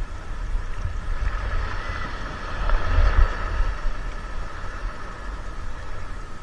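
Wind buffeting the microphone, with a steady mechanical hum under it that swells about three seconds in and then fades.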